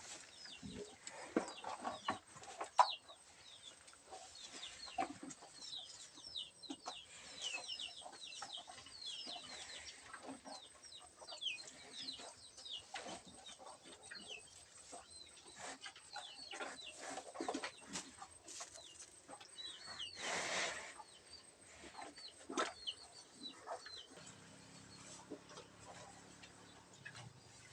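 Chickens clucking and peeping, a constant chatter of short, high falling chirps with scattered knocks, and a brief rush of noise about twenty seconds in.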